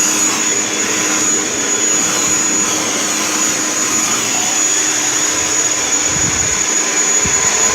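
Kirby Sentria vacuum cleaner running steadily: a rushing suction noise with a constant high-pitched whine from the motor.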